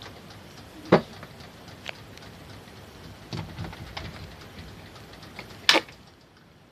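Westinghouse ceiling fan running with a steady hum, broken by several sharp clicks; the loudest come about a second in and just before six seconds. After that last loud click the running noise drops away.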